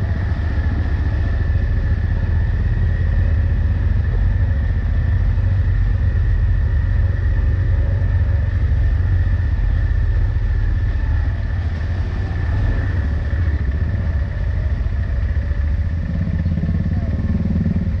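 Side-by-side UTV engine running as it crawls along a muddy trail: a steady heavy low rumble with a thin constant whine above it, the rumble easing a little near the end as the vehicle slows.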